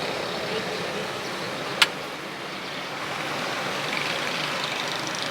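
Steady street noise with passing traffic, and one sharp click a little under two seconds in.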